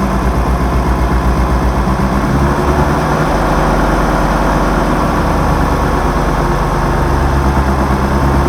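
Peugeot XU9J4 16-valve four-cylinder engine running steadily on its first start after a rebuild. Its low note shifts about two and a half seconds in and again near seven seconds.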